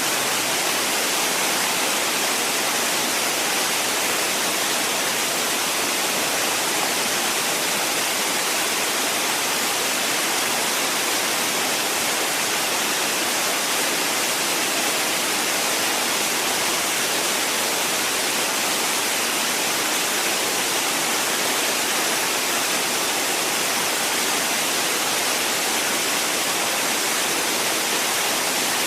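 The Dubai Mall's indoor waterfall: water cascading down and splashing, a steady, even rush with no change throughout.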